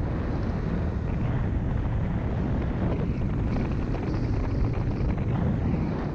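Wind rushing over a GoPro's microphone during a fast downhill ski run at about 50 km/h, a steady low rumble, with the hiss of skis sliding on groomed snow.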